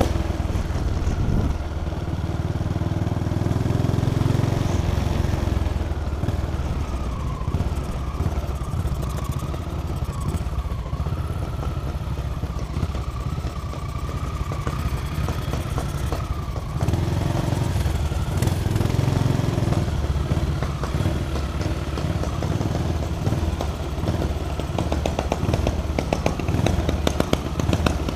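Motorcycle engine running as the bike is ridden, pulling harder twice and easing off in between. Near the end it settles toward an even, pulsing idle as the bike slows to a stop.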